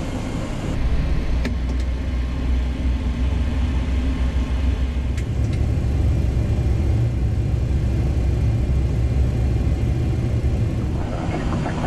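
Boeing 737-800's CFM56 jet engines starting, heard from inside the cockpit as a steady low rumble that shifts up in pitch about five seconds in. Two sharp clicks, about a second and a half and five seconds in.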